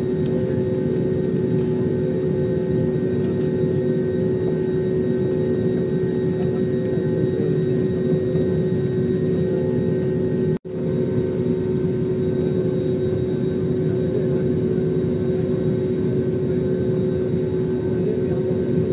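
Steady cabin noise of a passenger jet taxiing, its engines giving a constant hum over an even rushing noise, heard from inside the cabin. The sound cuts out for a split second about ten and a half seconds in.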